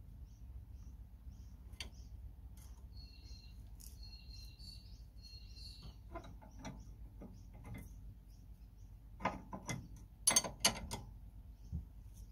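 Steel combination spanners clinking against each other and the bolt as they are fitted together and worked on a suspension cross-member bolt. The sharp metallic clicks are scattered, with the loudest cluster a few seconds before the end. Birds chirp briefly about a third of the way in.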